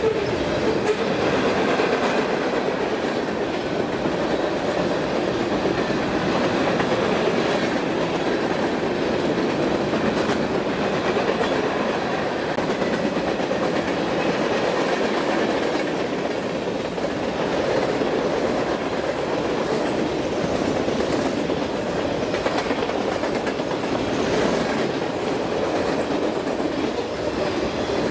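BNSF freight train cars rolling past, a steady rumble of steel wheels on rail.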